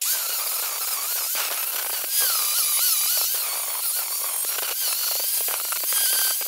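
Angle grinder with a flap disc grinding down a fresh weld on a steel bracket, a steady hissing grind with the motor's whine wavering in pitch. This is the weld being dressed flush to tidy it up.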